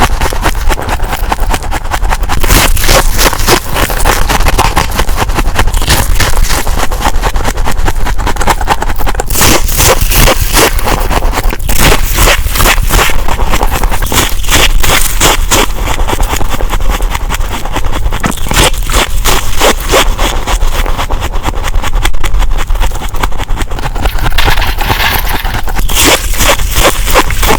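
Thick freezer frost scraping and crunching: a loud, continuous run of dense crackling scrapes.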